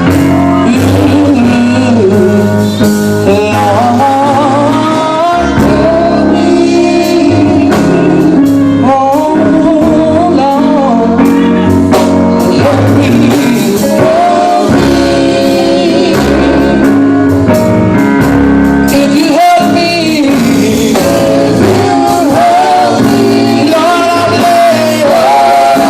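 Gospel group performing live: a male lead voice singing over electric guitar, bass and drums, in a large hall.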